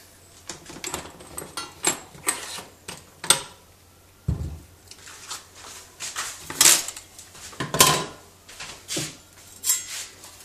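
Irregular clicks, knocks and rustles of coaxial cables and connectors being handled on a workbench, with a dull thump about four seconds in.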